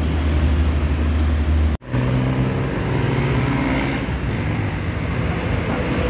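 Large coach bus engines running with road traffic noise, a steady low hum. It drops out for a split second about two seconds in, then carries on.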